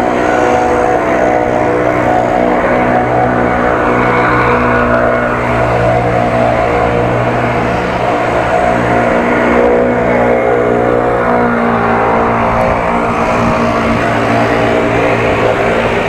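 Steady drone of a motor vehicle's engine running at an almost constant pitch.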